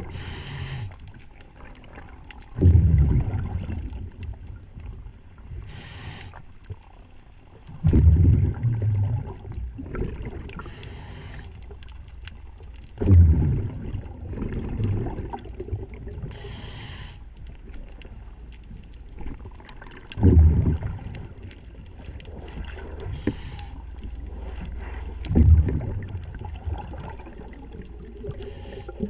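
Scuba diver breathing underwater: a hiss from the regulator on each inhale, then a low rumbling rush of exhaled bubbles, about every five seconds.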